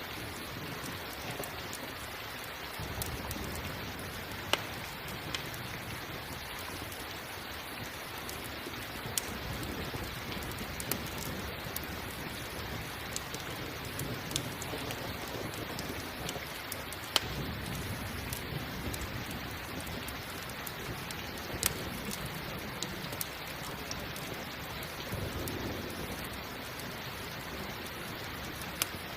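Steady rain falling, with scattered sharp pops from a crackling campfire and a few low rumbles of thunder.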